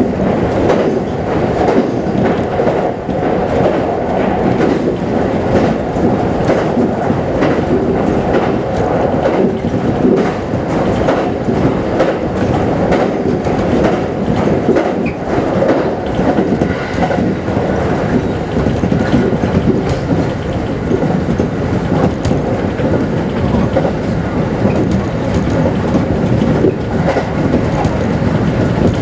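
Kintetsu Series 21 electric train running steadily, heard from inside the car: a continuous rumble of wheels on rail with frequent sharp clicks and knocks from the track.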